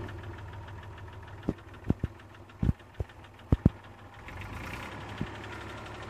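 IMT 539 tractor's diesel engine running steadily, heard from inside the cab. A string of sharp clicks and knocks comes over it between about one and four seconds in, and one more near five seconds.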